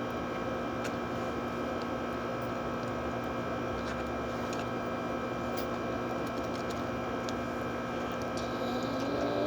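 Steady hum of a small motor or electrical appliance, a constant drone with several fixed tones, with a few faint clicks scattered through it.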